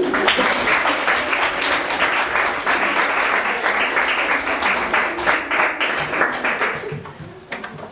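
Audience applauding, many hands clapping densely, then dying away near the end.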